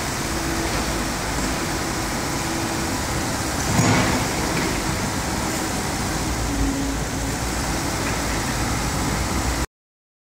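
Komatsu PC78UU-6 mini excavator running steadily while its boom, arm and bucket are worked, with a low tone that comes and goes and a louder surge about four seconds in. The sound cuts off suddenly near the end.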